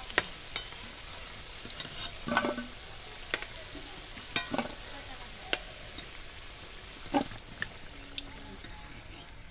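Potato chunks sizzling in hot mustard oil in an aluminium kadai, with sharp clinks of a steel spoon against the pan and the bowl as the fried potatoes are lifted out.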